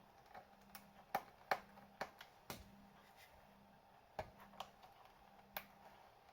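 Scattered sharp clicks and taps of small plastic and metal parts of a laptop being handled during disassembly, about ten in all, irregularly spaced, the loudest a little over a second in.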